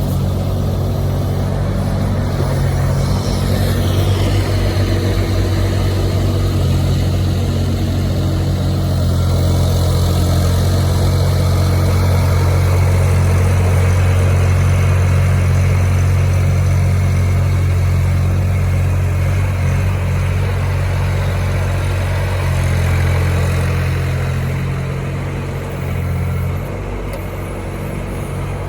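Sherpa WE18 mini excavator's engine running steadily, louder through the middle and easing back near the end.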